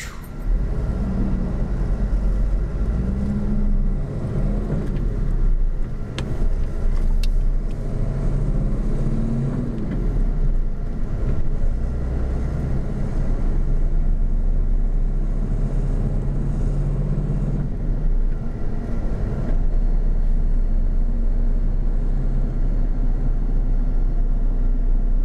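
Truck engine and road noise heard from inside the cab while driving on a highway: a steady low rumble, with the engine note rising and falling a few times.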